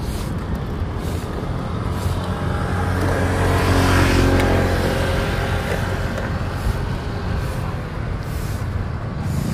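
A motor vehicle passes close by over a steady low rumble of traffic, its engine and tyre noise swelling to a peak about four seconds in, then fading.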